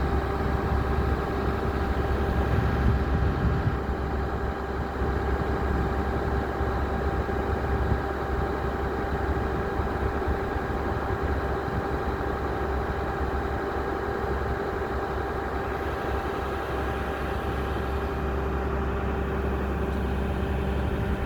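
Heavy diesel engine running steadily at low revs, a deep rumble with a steady hum over it.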